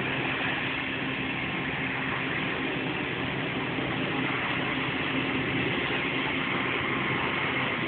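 Fire boat's engines and fire pumps running steadily, a constant drone under an even hiss of water jets spraying from its monitors and hoses.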